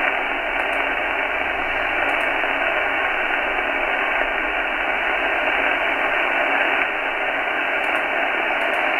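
Steady static hiss from the speaker of an AOR AR5001DX communications receiver tuned to the 80-metre band, cut off above about 3 kHz. There is only band noise and no voice signal on the frequency.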